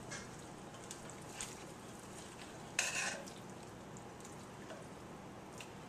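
A spoon stirring through braised oxtails and vegetables in a pot, with one louder scrape of the spoon against the pot about three seconds in and a few small clicks, over a faint steady hiss.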